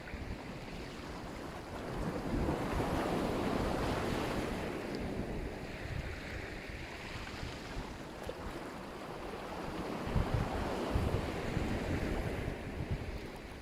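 Sea surf: waves breaking and washing up the shore, one swell building about two seconds in and another near the end, with wind buffeting the microphone.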